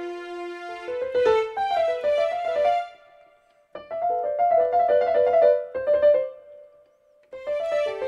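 Digital keyboard playing a piano sound: short melodic phrases of single notes, starting on a held note, with a brief silence about three seconds in and another just after seven seconds.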